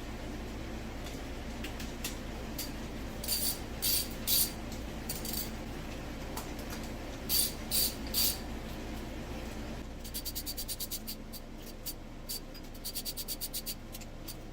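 A socket ratchet clicking in quick, even runs as cylinder head bolts are run down, twice in the second half, after a few sharper metallic clinks of tools and sockets.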